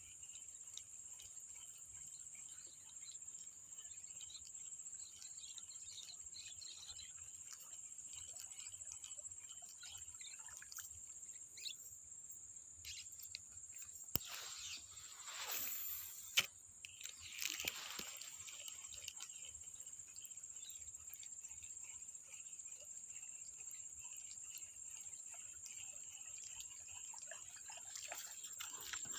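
Insects, crickets among them, chirring steadily at a high pitch. About halfway through comes a brief rustling swish with a couple of sharp clicks.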